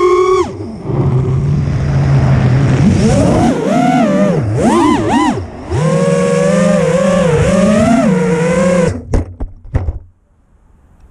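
FPV quadcopter's four DYS 2600kV brushless motors and propellers whining from on board, the pitch rising and falling with throttle. About nine seconds in, a few sharp knocks as the quad hits the ground, and the motors cut out, leaving only faint wind.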